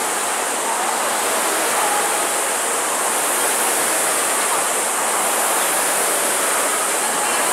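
Steady rushing hiss of a row of air-resistance rowing ergometers, their fan flywheels spun by rowers pulling hard.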